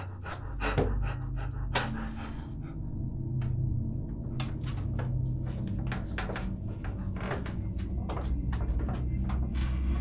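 Heavy, fearful panting over a low, steady dark drone that comes in just after the start, with scattered small clicks and creaks throughout.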